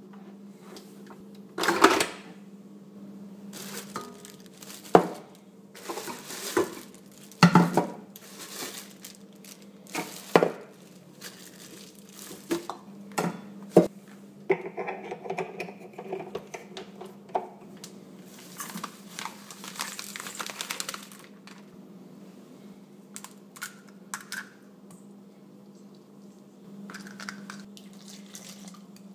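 Handling a stand mixer's parts: a string of sharp clinks and knocks from the stainless steel bowl and attachments, and bursts of crinkling plastic wrap, over a steady low hum. The mixer's motor is not running.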